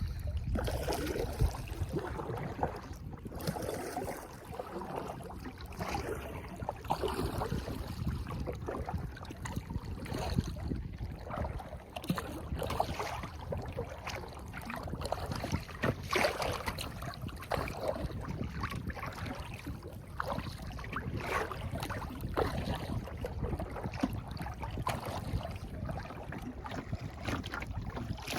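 Kayak paddling on a lake: paddle blades dipping and splashing in irregular strokes, with water lapping against the hull. A low wind noise runs on the microphone throughout.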